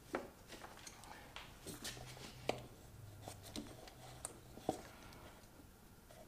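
Faint handling noise: light clicks and rustles of wire and small plastic parts being worked by hand, with a couple of sharper ticks about two and a half and four and a half seconds in.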